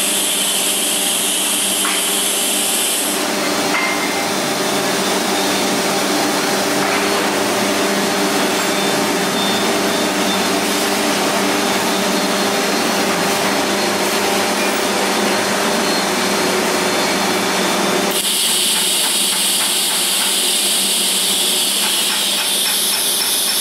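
Hand-held die grinder with a sanding drum running steadily, deburring and shaping titanium exhaust tube sections. It makes a constant whine, with a high hiss that drops away about 3 seconds in and comes back about 18 seconds in.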